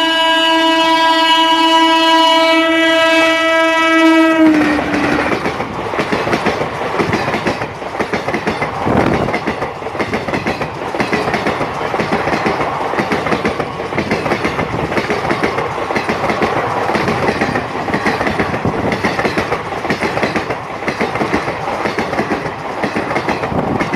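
An Indian Railways locomotive horn holds one long steady blast that stops about four seconds in. The passing train's wheels then clatter rapidly over the rail joints and crossover points, a dense steady clickety-clack that lasts nearly to the end.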